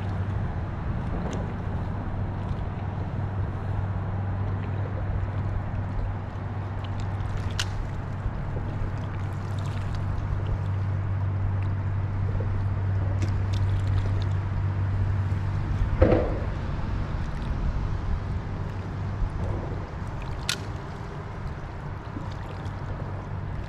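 Water lapping and gurgling around a kayak hull beside a barnacle-covered bridge piling, under a steady low hum that eases off about two-thirds through. A single loud knock comes at that point, with a few faint ticks scattered before and after.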